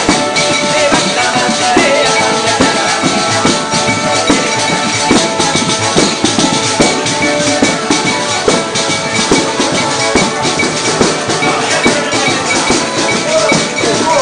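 Southern Italian folk music: a zampogna bagpipe sounding its chanters over held drones, with several tamburelli (large frame drums with jingles) beaten continuously in a steady rhythm.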